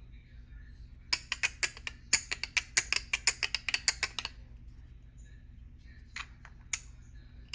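Rayge3D Clicktopuss fidget clicker being clicked. There is a fast run of sharp clicks, about six a second, for some three seconds, then a few single clicks near the end.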